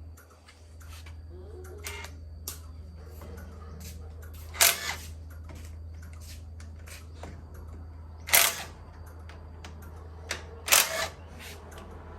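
Scattered sharp clicks and knocks of tools and metal parts being handled during engine disassembly, over a steady low hum. There are three louder knocks, the last of them a double.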